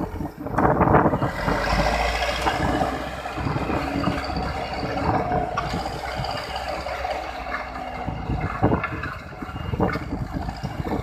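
Diesel engine of heavy construction machinery running steadily, with irregular knocks and clatter, and wind noise on the microphone.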